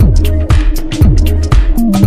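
Electronic dance music with a steady kick drum at about two beats a second, falling bass slides and high hi-hat ticks.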